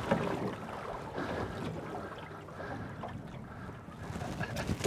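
Water splashing and sloshing at the surface as a released blue catfish swims off, with wind on the microphone. A short knock near the end.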